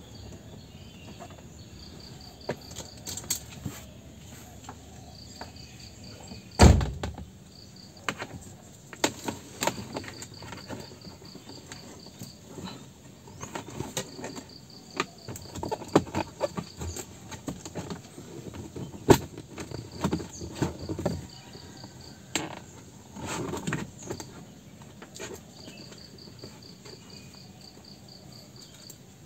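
Scattered clicks, knocks and rustles of hands working under a car's dashboard among its plastic trim and wiring, with one loud thump about seven seconds in. A cricket chirps in repeated trains of rapid high pulses.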